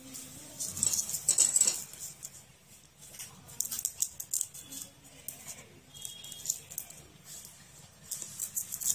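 Small clicks, taps and rustles from handling wires and an LED circuit board while a lead is being unsoldered from it with a soldering iron, coming in short scattered clusters.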